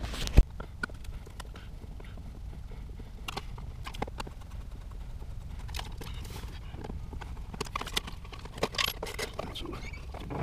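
A sharp click about half a second in, then scattered light clicks and taps as a plastic weatherproof outdoor outlet cover is handled and a screwdriver works at the outlet's cover plate screws.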